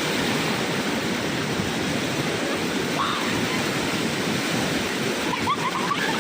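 Waterfall in flood: a steady, even rush of fast-flowing water.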